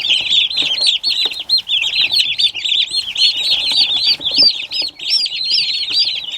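A group of baby turkey poults peeping without pause, many high, short chirps overlapping at once.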